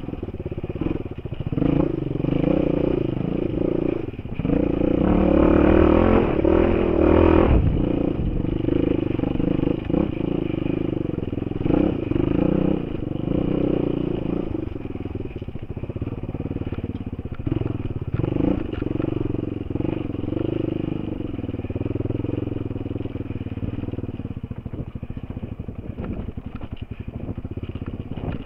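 Enduro motorcycle engine running at varying revs as the bike is ridden over rough, rocky ground. The engine gets louder from about four seconds in to about eight seconds in, then eases off. Short knocks and clatter from the bike over the stones run throughout.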